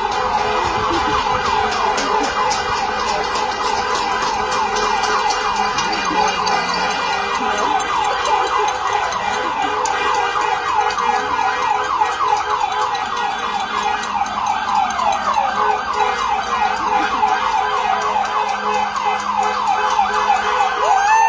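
Emergency-vehicle sirens sounding a fast yelp, a rapidly repeating rising and falling whoop, with more than one siren overlapping. Sharp clicks run through it, and right at the end a steady tone rises in.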